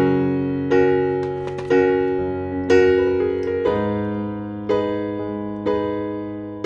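Background music: electric piano playing slow chords, a new chord struck about once a second and fading before the next.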